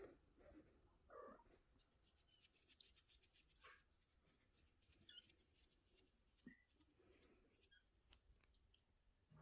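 Kittens making a quick run of faint, sharp scratching clicks, several a second, from about two seconds in until near the end, with a short faint sound a second in.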